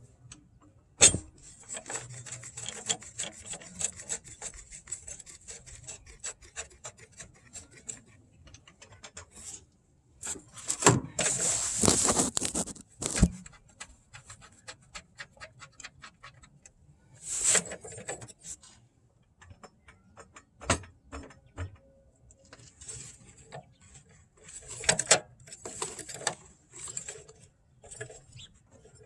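Hand-tool and parts-handling noise from engine mount work: runs of quick clicks with rubbing and scraping, a sharp knock about a second in, and a louder stretch of scraping about a third of the way through.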